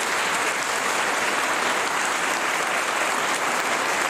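A large congregation applauding, steady dense clapping throughout.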